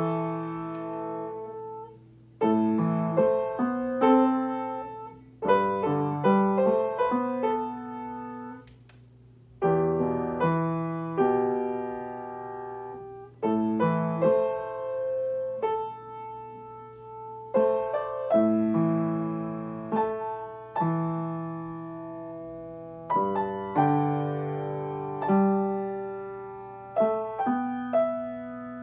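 Upright piano played solo at a slow pace: chords and melody notes struck and left to ring and fade, in phrases of a few seconds with short pauses between them.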